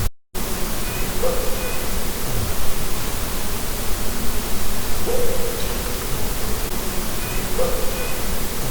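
Heavy steady hiss of an amplified night-time field recording, with a faint short call at one low pitch repeating three times, looped. It cuts out to silence very briefly at the start.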